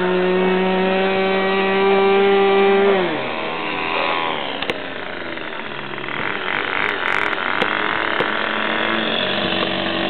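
Small model airplane engine on a Ben Buckle Super Scorpion making a low pass. It runs at a steady high pitch, then about three seconds in its pitch drops sharply and the sound fades as the plane goes by. Near the end it grows louder again with a rising pitch as the plane comes back.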